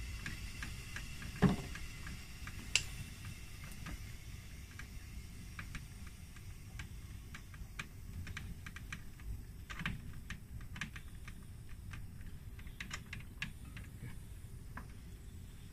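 Scattered small clicks and taps of gloved hands working the valve knobs and brass fittings of a refrigeration manifold gauge set, with a couple of louder knocks in the first few seconds, over a low steady hum.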